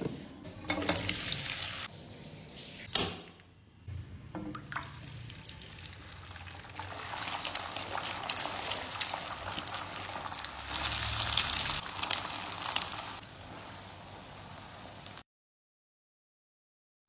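Eggs frying in oil in a pan, sizzling while a spatula stirs them, with a sharp click a few seconds in. The sound cuts off to dead silence for the last two seconds.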